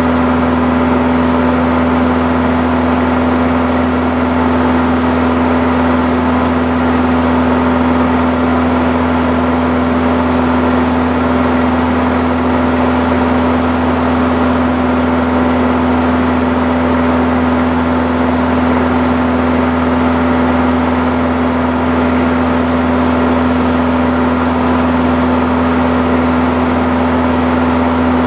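Steady drone of a Morane-Saulnier MS.880B Rallye's four-cylinder Continental O-200 engine and propeller in cruise, heard inside the cockpit with a constant hum and a rush of air. It holds one unchanging pitch and level throughout.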